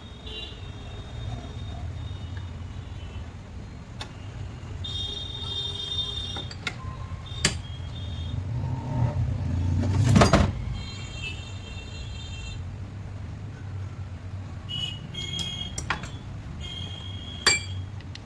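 Metal parts and tools clinking, with short high ringing tones and a louder knock about ten seconds in, over a steady low rumble.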